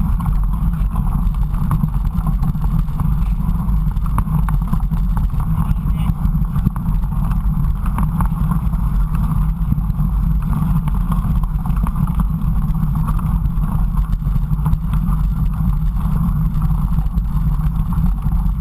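Steady low rumble of wind buffeting a GoPro's microphone, mixed with the rolling noise of a mountain bike on a trail, with no breaks.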